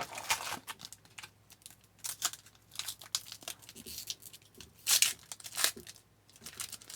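Trading cards crinkling and crackling as they are handled and pulled apart, their protective film rustling. The crackles come unevenly, with a louder burst about five seconds in.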